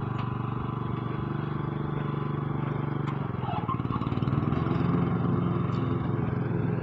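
Small engine of a riding lawn tractor running steadily, its note changing about three seconds in.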